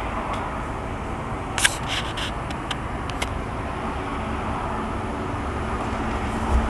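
Steady low outdoor rumble, like distant traffic, with a few light clicks between about one and a half and three seconds in.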